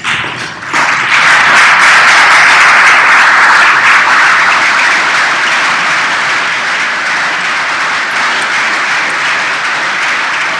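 A roomful of people applauding: dense, loud clapping that swells about a second in and eases slightly toward the end.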